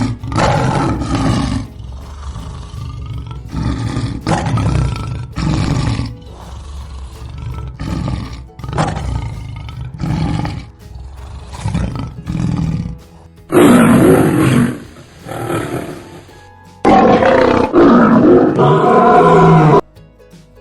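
Lion roaring over and over in separate calls of a second or two each, the last two calls longer and louder, with background music underneath.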